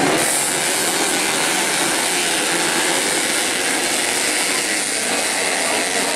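A pack of small grasstrack racing motorcycles, beginner standard bebek (underbone) class, running hard together at high revs, their engines merging into one dense, steady blur of engine noise.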